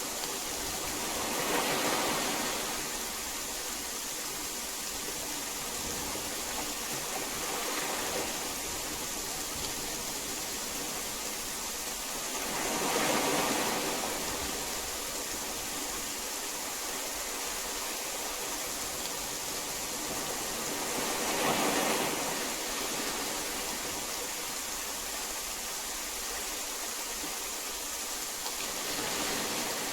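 Steady heavy rain, an even hiss that swells louder for a second or two five times, several seconds apart.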